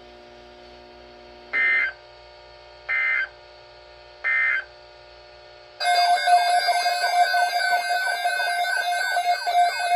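NOAA weather radio EAS end-of-message signal: three short digital data bursts, each a rasping squawk, about a second and a half apart. About six seconds in, a loud, continuous, warbling electronic alert tone begins, signalling an incoming alert.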